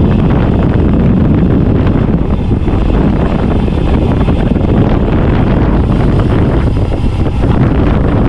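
Wind buffeting the microphone on a road bike descending fast: a loud, steady rush of noise with no break.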